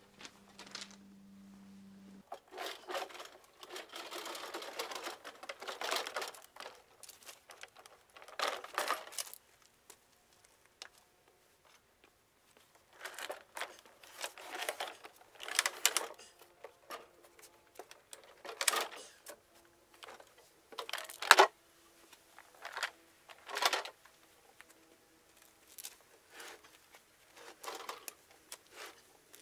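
Irregular short bursts of rattling and rustling handling noise from hands working with tools and parts, with brief pauses between bursts.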